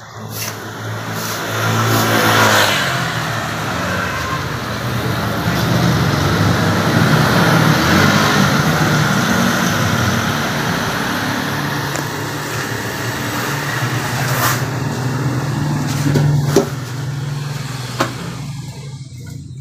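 A motor vehicle's engine running close by, with a pitch sweep as it swells about two seconds in, loudest around eight seconds, and fading near the end.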